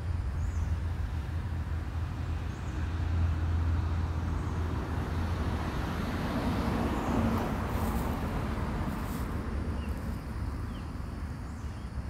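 Steady low outdoor rumble with a haze of noise, swelling for a few seconds about halfway through.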